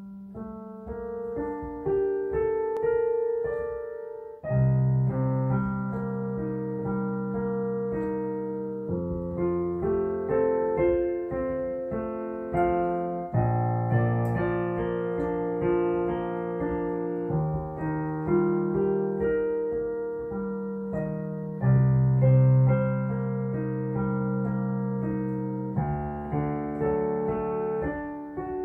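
Solo digital piano playing a slow, lyrical piece. A melody runs over held low bass notes and chords, and the harmony changes about every four seconds.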